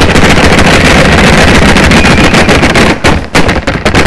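Clapping close to the microphone, merged into a loud dense rush of noise for about three seconds, then thinning into scattered separate claps.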